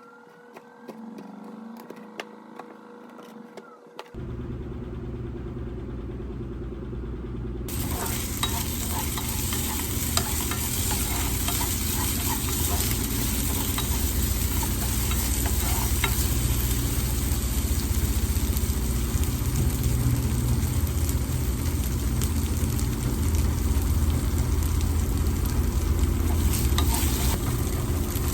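Food sizzling as it fries in a pan and is stirred. The pan goes quiet at first with a few light clicks, a steady low hum starts about four seconds in, and the loud sizzle starts a few seconds later.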